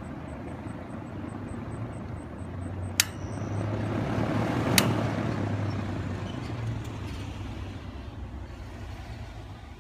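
Lakewood Country Aire 20-inch two-speed reversible window fan running, a steady motor hum under the rush of air from the blades. Its rotary switch clicks sharply twice, about three seconds in and again near five seconds. The air noise swells around the clicks and then gradually eases.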